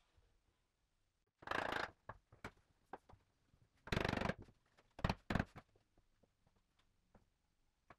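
Wooden frame parts and a walnut panel handled during assembly on a workbench: two short scraping rubs of about half a second each, and a handful of sharp wooden knocks, two of them close together about five seconds in.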